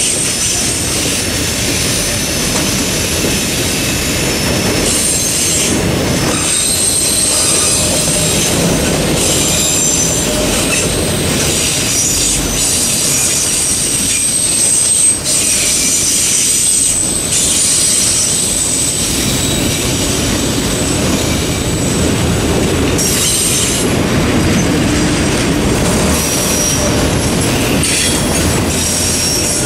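Freight train's autorack cars rolling steadily past at close range: continuous rumble and clatter of steel wheels on rail, with a high-pitched wheel squeal that comes and goes, strongest through the middle.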